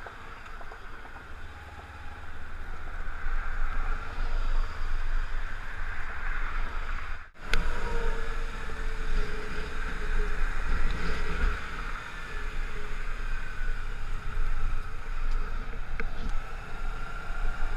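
Highway traffic rushing past, with wind rumbling on the microphone; the sound swells and eases as vehicles go by.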